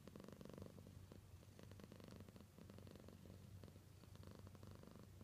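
Domestic cat purring quietly and steadily.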